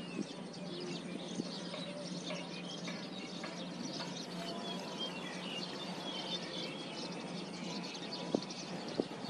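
Outdoor ambience: scattered short bird chirps over a steady low hum, with a couple of sharp clicks near the end.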